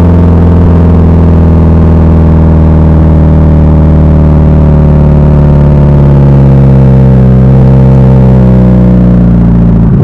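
Subaru Impreza STI's turbocharged flat-four boxer engine running through an A.R.T. titanium cat-back exhaust, heard right at the tailpipes. It holds a steady drone at an even engine speed, its pitch sagging slightly in the second half. The sound is loud and distorted.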